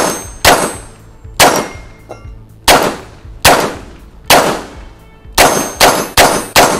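Glock 44 .22 LR pistol fired about ten times in quick, uneven strings, the last few shots coming faster, with steel plate targets clanging on the hits.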